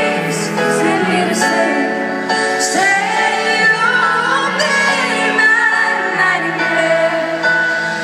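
A woman singing a slow ballad live over music, amplified through an arena sound system and heard from the audience.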